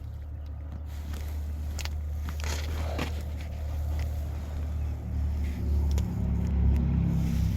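An engine running steadily as a low hum, with a stronger, fuller engine note building up about five seconds in as it comes closer or is revved.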